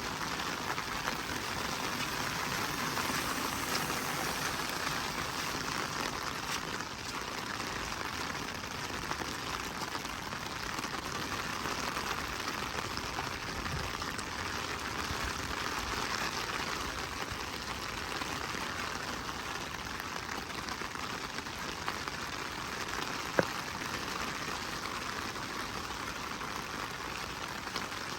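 Steady rain falling, an even hiss of drops pattering on surfaces. One sharp tick stands out about three-quarters of the way through.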